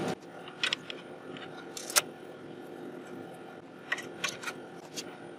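A few sharp, separate metal clicks and clinks as tools and parts are handled on a lathe's tooling plate, the loudest about two seconds in.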